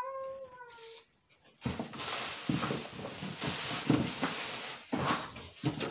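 Plastic packaging wrap crinkling and rustling as hands dig through a packed cookware box, starting a little under two seconds in. A cat meows once at the very start.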